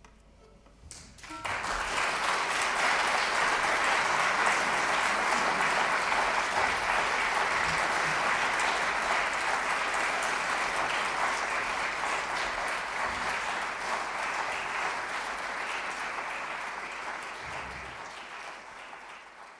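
Audience applauding, breaking out about a second and a half in after a quiet pause and fading away near the end.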